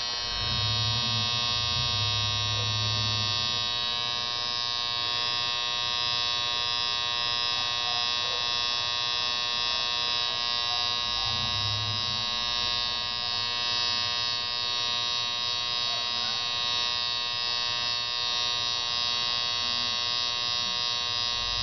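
Microwave oven transformer, rewound with a single turn of thick copper wire as its secondary, buzzing loudly and steadily while running into a dead short, heavily loaded as the shorted pipe heats up.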